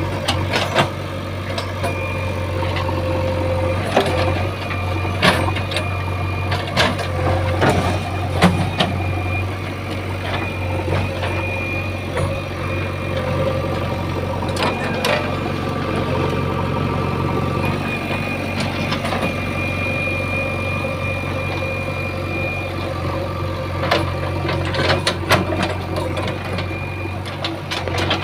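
JCB 3DX backhoe loader's diesel engine running steadily while the machine works, with a thin whine that comes and goes and many scattered knocks and clanks.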